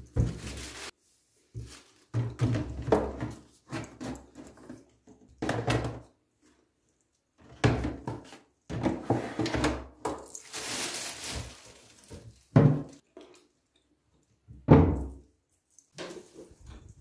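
Plastic cleaning-product bottles being picked up, set down and shuffled in a plastic basket inside a cabinet: a series of irregular knocks and thunks with short gaps, and a sharper thump a couple of seconds before the end.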